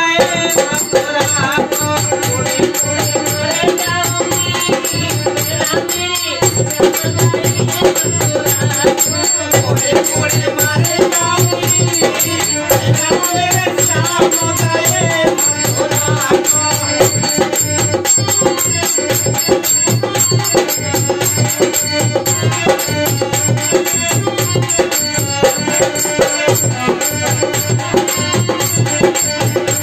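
Live folk bhajan: a dholak drummed in a steady rhythm under a harmonium's held chords. A man's voice sings through roughly the first half.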